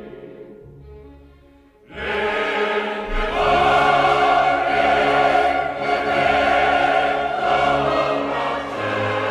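Classical choral music with orchestra: a soft passage fades away, then the choir and orchestra come in loudly about two seconds in and hold long sustained chords.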